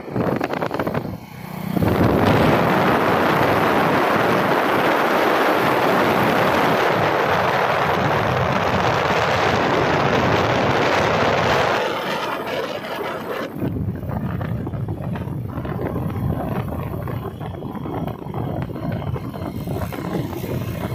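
Wind rushing over the microphone while riding in an open moving vehicle, with the vehicle's running noise underneath. The rush is loudest for about ten seconds, then drops a little before halfway to a lower, rougher rumble.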